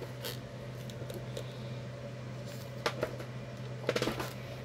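Hard plastic phone-case packaging being handled: a few light clicks and taps, one near the start, one near three seconds and a quick cluster around four seconds, over a steady low hum.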